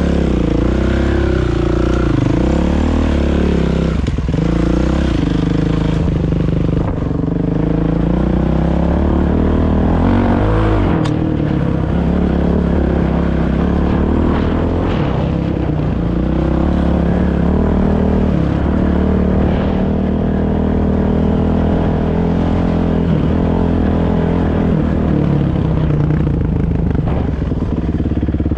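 Kawasaki KX450 dirt bike's four-stroke single-cylinder engine under way, its revs rising and falling again and again as it is ridden. A single sharp click partway through.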